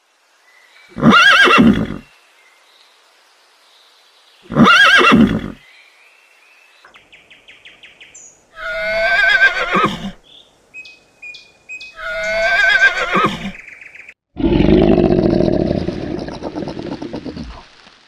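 Horses whinnying: four loud, shrill neighs of about a second each, a few seconds apart. Near the end comes a longer, lower, rough sound of about three seconds.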